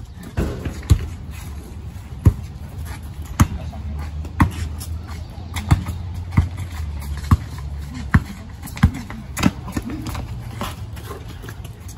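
Basketball dribbled on a concrete driveway, single bounces about once a second, with a low hum underneath through the middle.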